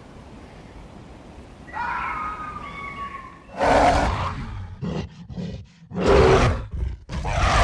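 A wavering, higher-pitched animal call, then a large animal roaring in loud bouts from about halfway in, with a quick run of short grunts between the roars.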